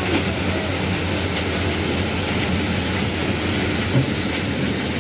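Ballast hopper wagon rolling slowly along new track while dropping crushed-stone ballast from its bottom onto the sleepers: a steady rain-like hiss and rattle of pouring stones over a low hum, with a thud about four seconds in.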